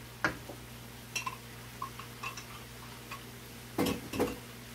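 Wooden spoon knocking and clacking against a stainless steel skillet of vegetables while stirring: scattered sharp knocks with small ticks between, a loud one about a quarter second in and two louder knocks near the end. A steady low hum runs underneath.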